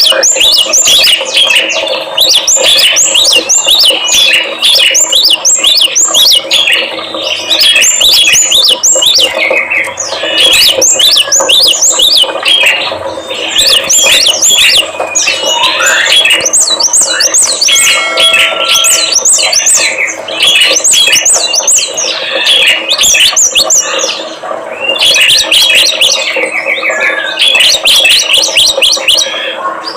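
A bird-song lure recording of small songbirds such as cinereous tit, prinia and white-eye, singing fast, dense chirps and trills in long runs with short breaks. A steady low hum runs underneath.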